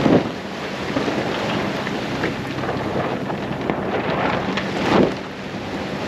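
Wind buffeting the microphone over the rush of water along a sailboat's hull, with two louder swooshes, one at the start and one about five seconds in, and a faint low steady hum underneath.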